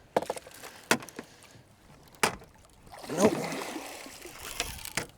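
Water splashing and a few sharp knocks as a hooked pike thrashes beside the boat while it is being netted.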